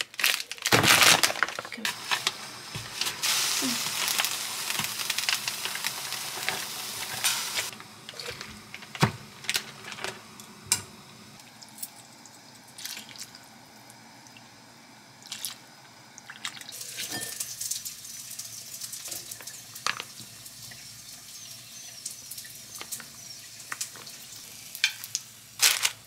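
Water running and splashing while noodles are prepared, loudest for the first several seconds, dying down mid-way and returning later. Scattered sharp clinks of metal tongs and utensils against a bowl.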